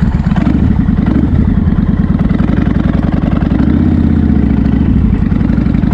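A 1500 cc bobber motorcycle's engine pulls hard under load up a steep dirt hill. It runs with a steady, fast beat of firing pulses, and its note shifts about halfway through.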